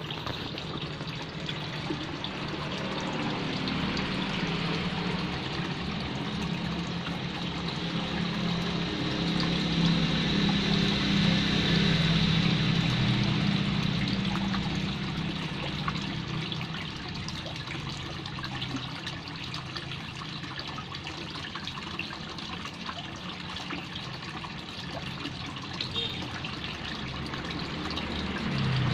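Steady running, trickling water in a koi pond, a little louder for a few seconds around the middle.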